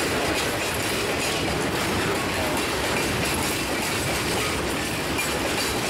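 Freight car wheels and trucks rolling steadily over jointed rail, clattering at the rail joints, with faint brief wheel squeals now and then.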